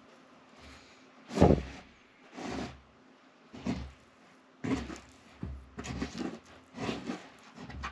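Wet hands stretching and folding sticky sourdough dough in a plastic bowl: a series of short wet squelches and slaps, about one a second, the loudest a little over a second in.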